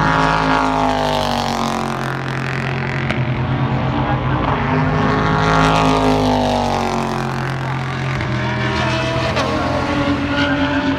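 GT racing car engines at full throttle passing along the circuit. Their pitch falls as one car goes away, climbs to a loud pass about five to six seconds in, then drops again as that car moves off.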